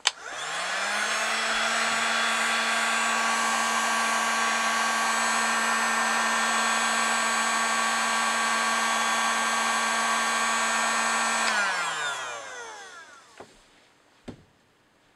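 Heat gun switched on, its fan motor spinning up to a steady whine over the rush of blown air, used to reflow solder paste. After about eleven seconds it is switched off and winds down with falling pitch. Two light clicks come near the end.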